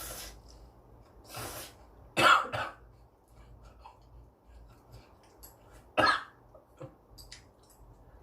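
A person coughing while eating extremely spicy ramen, the spice catching in the throat: a quick double cough about two seconds in and a single sharp cough about six seconds in, with faint clicks between.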